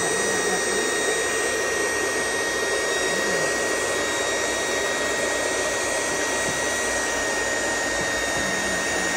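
Lejiang electric cloth cutting machine running steadily, its motor giving a constant high whine as the blade cuts through a stack of fabric layers.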